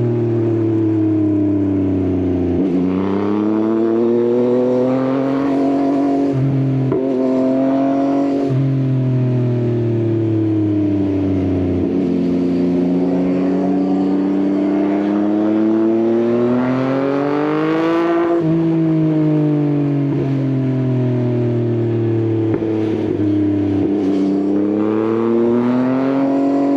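Yamaha XSR900 inline-three motorcycle engine with an Akrapovič exhaust under way. The revs rise and fall repeatedly, with abrupt pitch steps at the gear changes. The longest climb peaks about two-thirds of the way through, then the revs fall away slowly.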